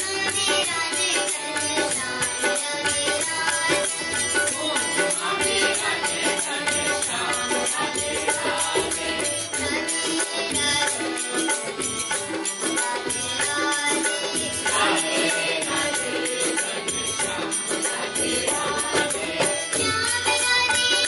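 Live Indian music from a small ensemble: tabla and dholak drumming under harmonium and acoustic guitar, with voices singing.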